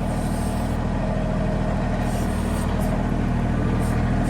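Mahindra 1626 compact tractor's diesel engine running steadily.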